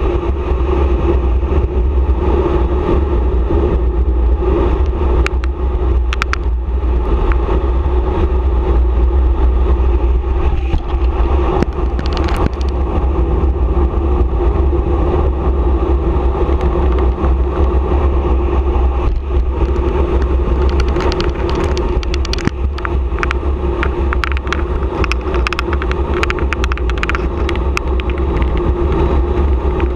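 Wind rushing over the camera microphone and tyre noise on asphalt as a bicycle descends a paved road at speed: a loud, steady low rumble with a constant hum. Short clicks and rattles from the bike are scattered through it, most of them in the second half.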